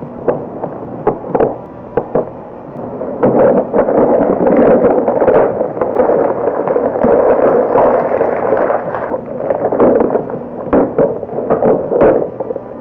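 Loud crackling and rustling close to the microphone, with many sharp pops and clicks, densest in the middle stretch.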